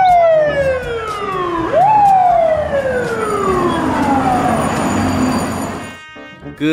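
Fire truck siren on a ladder truck, its pitch falling steadily, then swooping quickly back up about two seconds in and falling slowly again until it fades out near the end.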